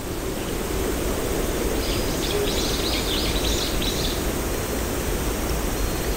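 Steady background ambience, an even rushing noise, with a brief run of high chirps about two seconds in.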